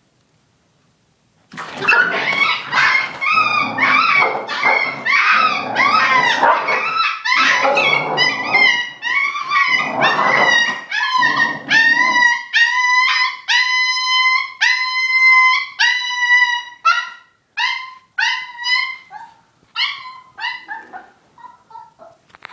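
A puppy yelping and screaming in distress as its mother dog grabs it in her mouth. The cries start suddenly, dense and frantic with a rougher low sound mixed in at first. About halfway through they settle into a series of separate high yelps, about two a second, that thin out and fade near the end.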